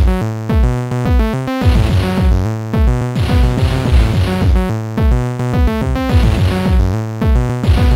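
Electronic tracker music from an Amiga intro, played on the Amiga's own sound chip: synth chords and melody over a steady drum-machine beat with punchy kick drums that drop in pitch.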